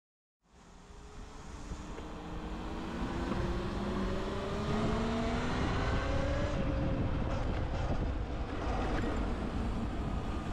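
Riding an electric dirt bike: heavy wind rumble on the microphone, with the motor's whine gliding slowly up in pitch as the bike speeds up. The sound fades in about half a second in.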